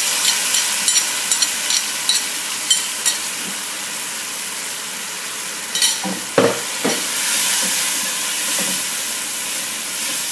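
Tomatoes and green chillies sizzling in hot oil with fried onions in a pot, a steady frying hiss. Light clicks of a spoon scraping the last of the mixture from a bowl come in the first few seconds. A couple of louder knocks and scrapes of the stirring spoon come a little past halfway.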